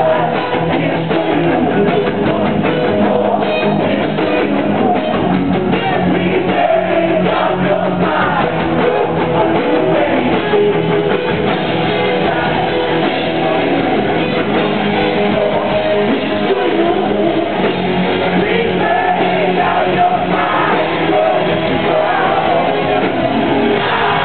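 Rock band playing live, with heavy electric guitars, drums and singing. It is picked up by a camera's own microphone, so the sound is poor and dull.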